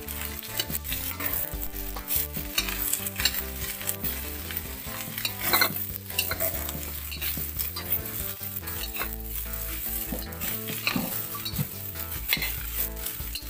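Tempeh and long beans sizzling in oil in a steel wok while a metal spatula stirs and tosses them, with repeated scraping strokes against the pan; the loudest scrape comes about five and a half seconds in.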